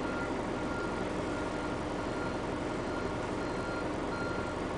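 Reversing alarm beeping about twice a second over the steady running of heavy diesel engines, from a wheel loader and dump truck both backing up.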